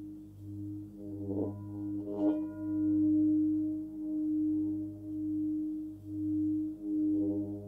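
A 30.6 cm forged Nepalese singing bowl tuned to about 99 Hz (G) rings with a deep steady tone that pulses in slow swells about once a second. It is struck twice with a padded mallet, about a second apart, starting a second and a half in, and the tone swells up after the second strike.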